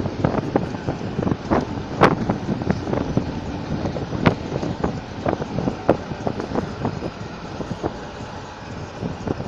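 Steady mechanical rumble with many irregular, clattering knocks, which thin out near the end.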